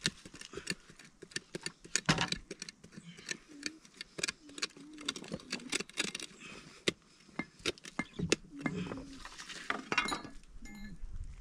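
A thin metal digging bar stabbed over and over into stony soil to loosen earth in a small hole. It makes irregular sharp knocks and scrapes as it strikes dirt and pebbles.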